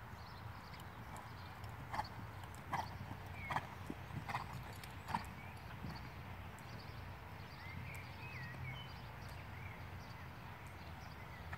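A horse cantering on a sand arena: five regular beats of its stride, about three-quarters of a second apart, between about two and five seconds in, over a steady low outdoor background.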